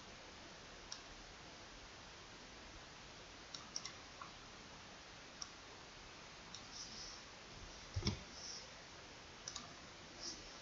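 Scattered computer mouse clicks, single and in quick pairs, over a faint steady hiss, with one louder dull knock about eight seconds in.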